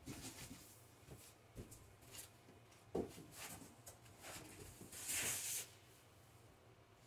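Faint rustling and handling noises, with a sharp knock about three seconds in and a short, louder rustle about five seconds in.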